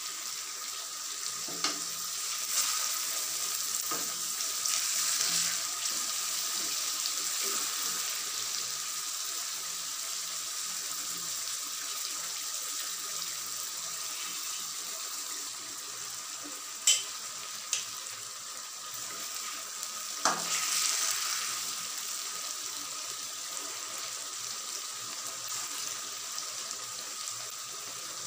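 Fish curry sizzling in a pot of oily masala gravy on the stove, a steady hiss. Two sharp clicks come a few seconds apart past the middle.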